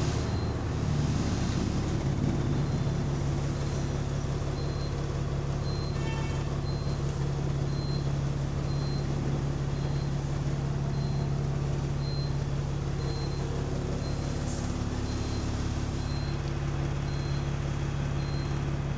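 Bus engine running with a steady, strong low drone, the deep exhaust note of a leaking exhaust. A faint high chirp repeats about once a second.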